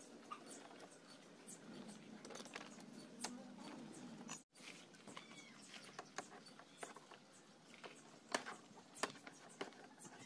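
Scattered small clicks and taps of hand tools and plastic parts as a scooter's body-panel screws and clips are worked loose, with a brief cut in the audio about four and a half seconds in.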